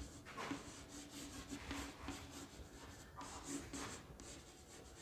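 Chalk writing on a chalkboard: a series of faint, short scratching strokes as words are written out.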